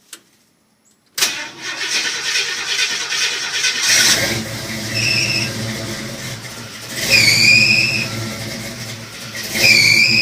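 The engine of a throttle-body-injected International Harvester Scout is cranked by the starter for a few seconds before it catches, a hard start. It then runs and is revved several times, and a high squeal comes in with each rev.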